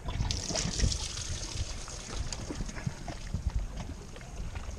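Water trickling and splashing against a small fishing boat's hull, with wind on the microphone.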